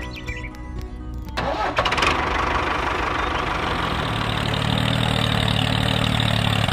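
Music ends about a second in, then an engine starts and runs steadily, its low hum growing stronger about four seconds in.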